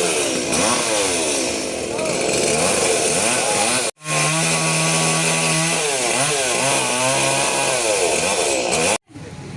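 Chainsaw running and revving up and down over and over, holding a steady pitch for a couple of seconds midway. The sound cuts off abruptly about four seconds in and again near the end, where edited clips join.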